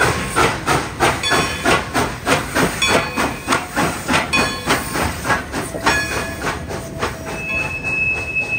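Coal-fired steam locomotive No. 192 (a Baldwin 2-8-2) working under load, its exhaust chuffing in an even rhythm of about four beats a second with steam hissing between the beats. A steady high tone joins about seven seconds in.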